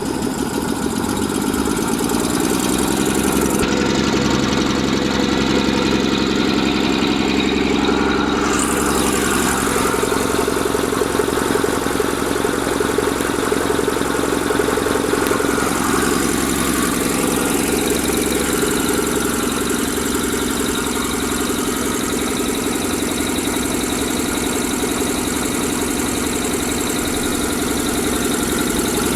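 A 20 HP air compressor running steadily under load, with a fast, even pulsing chug, as it pumps up its tank.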